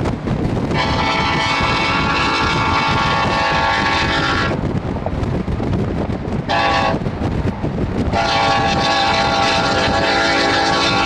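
Union Pacific diesel locomotive's air horn sounding the grade-crossing signal: a long blast, a short one, then another long blast held on, over a steady low rumble.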